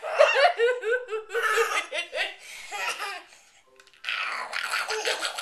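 A woman and a toddler laughing together: high-pitched giggles in quick repeated runs, with a short pause a little past halfway.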